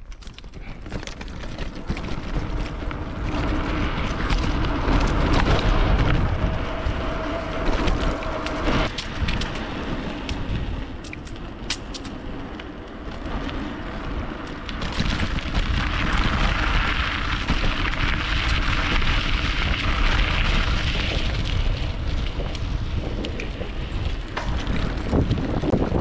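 Wind buffeting the microphone on a moving bike: a loud, rumbling rush that swells and eases.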